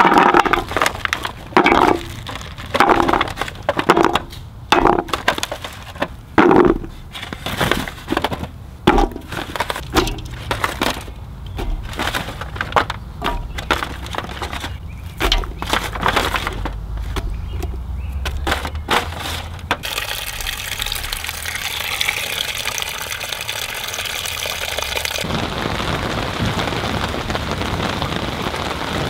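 Chopped vegetables (baby carrots, then potato chunks, green pepper and onion) dropped by hand into an empty metal camp pot, making many irregular knocks and clunks. About twenty seconds in, these give way to a steady hiss, and the last few seconds hold the even hiss of rain.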